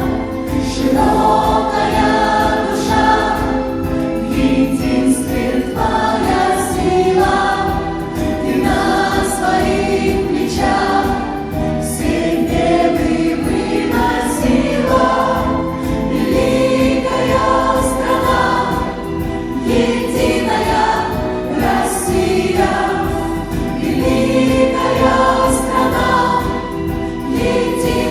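Choir singing a song over instrumental backing, recorded live.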